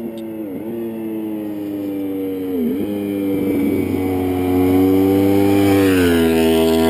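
2010 Yamaha YZF-R1's crossplane inline-four through a TOCE aftermarket exhaust, approaching and growing steadily louder, with two brief dips in engine pitch. It passes through the corner about six seconds in, the pitch dropping as it goes by.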